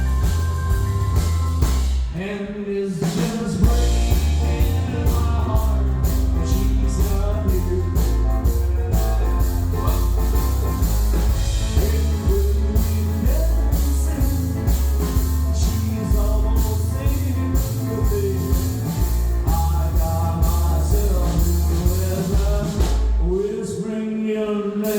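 Live band playing an upbeat rock/country song with a singer over drum kit and bass, heard through a phone's microphone. The bass and drums drop out briefly about two seconds in and again near the end.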